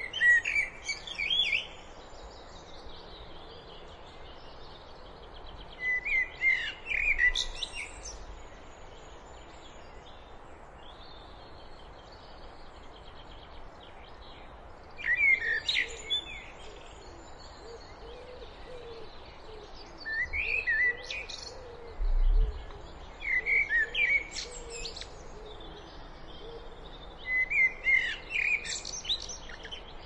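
Eurasian blackbird singing: six short phrases a few seconds apart, each a run of quickly changing notes that ends in higher, thinner notes, over faint steady background noise.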